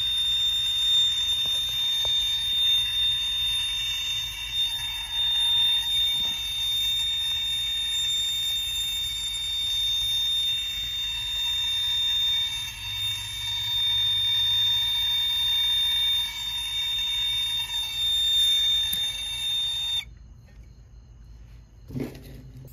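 Hand-held gas torch flame burning steadily with a hiss and a high, steady whistling tone, heating a copper refrigerant-line joint for silver soldering. The torch shuts off suddenly about 20 seconds in.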